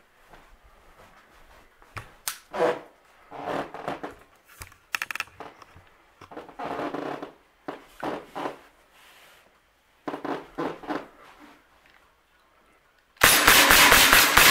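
SIG Sauer P320 CO2 air pistol fired in a rapid string of semi-automatic pellet shots, several cracks a second, starting about a second before the end. Before that there are scattered rustling and bumping handling noises.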